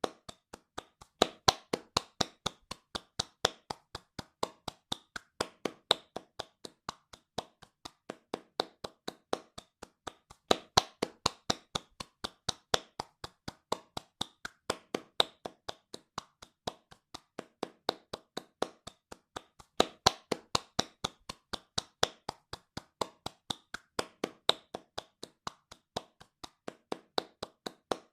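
Hands clapping fast in a steady, even rhythm, some claps louder than others.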